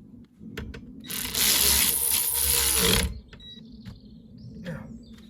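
A ratchet wrench spun rapidly, giving a dense burst of clicking about two seconds long that starts about a second in and stops suddenly.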